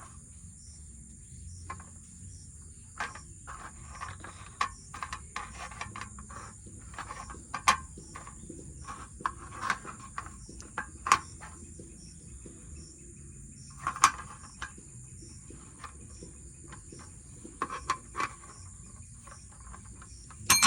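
Plastic Rubik's cube being twisted: irregular clacks and short runs of rapid clicking as its faces turn, in bursts separated by pauses. A steady high-pitched hiss runs underneath.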